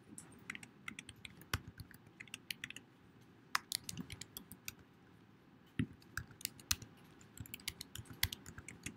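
Typing on a computer keyboard: quick, irregular keystrokes in short runs, with a pause of about a second midway.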